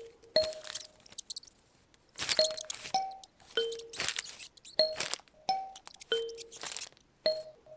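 Kalimba playing a slow melody of single plucked, ringing notes, with short bursts of paper rustling between them.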